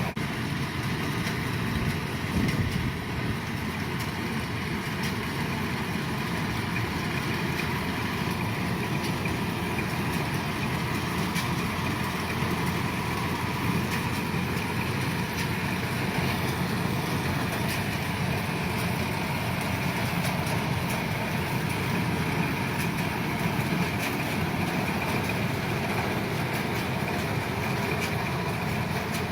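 Kubota DC-105 combine harvester's diesel engine and machinery running steadily under load, with a faint high whine held over the engine noise.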